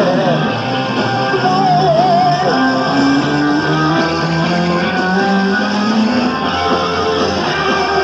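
Hard rock band playing live, with electric guitar to the fore over bass and drums. Early on a pitched line wavers, then a line climbs steadily in pitch through the middle.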